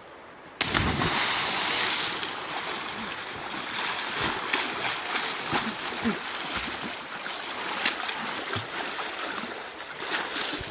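A person plunging into cold creek water about half a second in: one big sudden splash, then continued splashing and sloshing as he thrashes and wades in the water.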